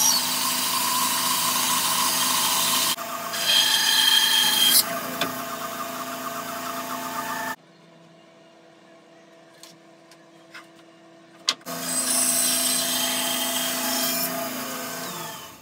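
Benchtop bandsaw running and cutting through a block of oak, with a higher whine as the blade bites. It stops abruptly about seven and a half seconds in. A few seconds of faint clicks follow, then a second cut starts and fades out near the end.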